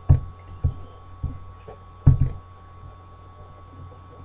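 Four dull knocks in the first two seconds or so, over a steady low electrical hum and a faint high whine.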